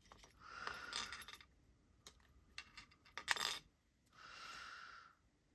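Small metal knife parts being handled: quiet clinking and rattling, with a cluster of sharp clicks about three and a half seconds in.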